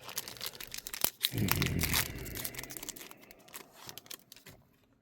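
Plastic trading card pack wrapper being torn open and crinkled in the hands, a dense crackling rustle, heaviest and loudest about a second in, then thinning out.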